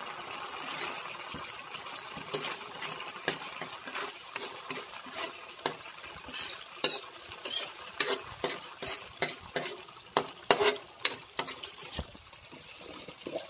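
Metal spoon stirring and scraping a ketchup-based sauce in a metal wok, with irregular clicks of the spoon against the pan over a steady frying sizzle. The sizzle eases a little near the end.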